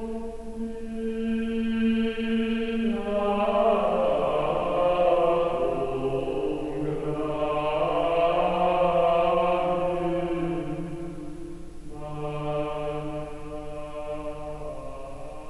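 Background music of voices singing a slow sacred chant in long, held notes, with the chord changing every few seconds.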